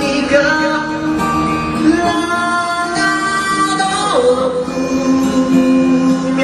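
A voice singing long held notes over a strummed acoustic guitar. One note slides down about four seconds in.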